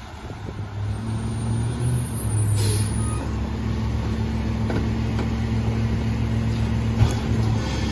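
McNeilus rear-loader garbage truck's engine idling steadily, with a short hiss of air about two and a half seconds in and a single knock near the end.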